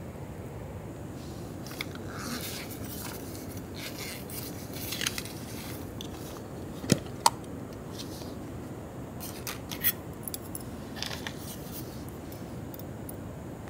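A neoprene cookware case being unzipped and a titanium pot with a plastic lid being handled inside it: short rasps and scrapes, with two sharp clicks about seven seconds in, over a steady low background hiss.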